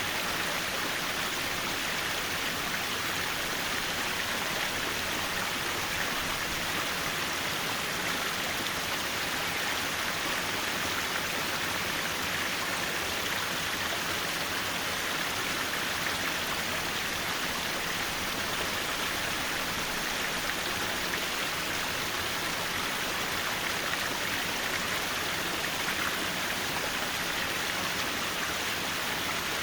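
Mountain valley stream flowing, a steady, even rush of water with no changes.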